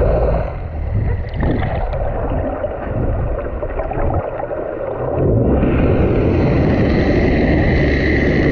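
Fishing boat's engine running steadily, with water sloshing and gurgling against the hull. The engine sound eases off for a few seconds, with scattered knocks, then comes back stronger about five and a half seconds in.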